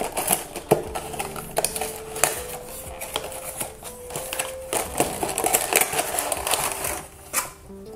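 Hands opening a small cardboard blind box and drawing out its contents: the card flaps and plastic packaging rustle and crinkle, with many small clicks and taps.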